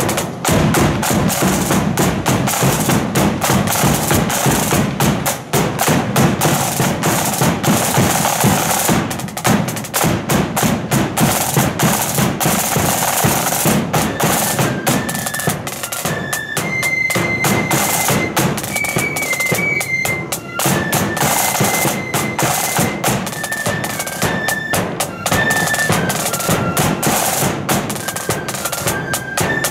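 Marching flute band: snare drums and a bass drum beating a dense rolling march rhythm, with the flutes coming in with a melody about halfway through.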